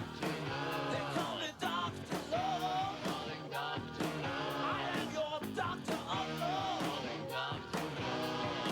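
Recorded rock-and-roll music with guitar and a steady drum beat, with bending melodic lines that may be guitar or voice.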